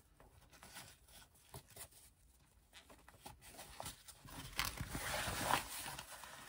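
Slippery fabric rustling as it is handled and pulled apart by hand, with faint scattered ticks at first and louder rustling from about four seconds in.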